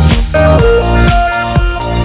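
Electronic background music with a steady beat and a repeating melody.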